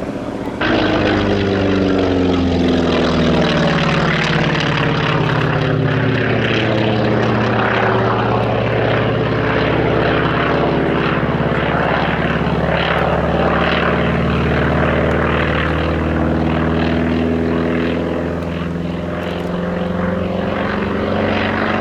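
Radial piston engine of a propeller warbird flying by, a steady loud drone whose pitch slowly bends as the aircraft passes.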